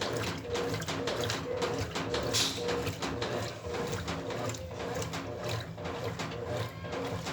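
Brastemp Ative top-loading washing machine agitating during the wash cycle: the motor hum pulses about twice a second as the agitator swings back and forth, with water sloshing in the drum.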